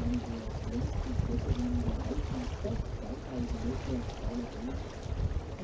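Water rushing in a tour boat's wake with a steady low rumble, under indistinct voices of people talking.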